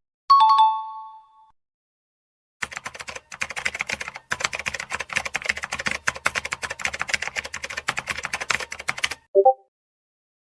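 A short bright chime rings and fades, followed after a pause by about six and a half seconds of rapid typing clicks. A brief low tone sounds just after the typing stops.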